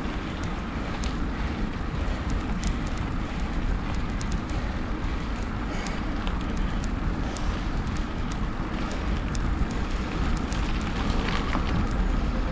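Wind rumbling on an action camera's microphone while a mountain bike is ridden, with scattered small clicks and rattles.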